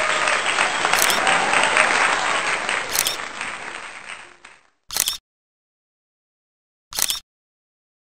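Applause from a crowd, a dense clapping that fades out over about four seconds, followed by two short bursts of noise about two seconds apart.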